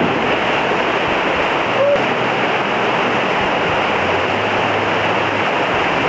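Two-tiered waterfall pouring into a rock pool, a steady rush of falling water.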